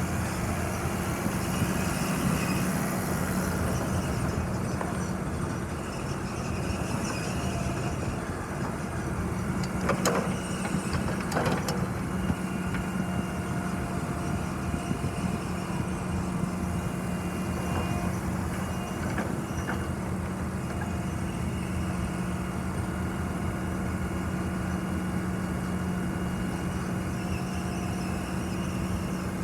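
Diesel engine of a JCB 8065 midi excavator running steadily, with a couple of brief knocks about ten seconds in.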